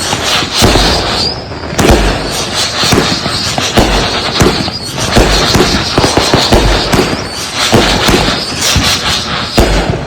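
Consumer aerial firework cakes firing in quick succession: a dense run of sharp bangs and crackling shots, a deep boom every second or two, and a high whistle running over them.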